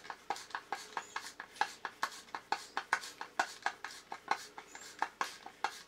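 Hand screwdriver driving a long 6-32 machine screw into a 3D-printed plastic part: a run of light clicks, about four or five a second, as the screw is turned in.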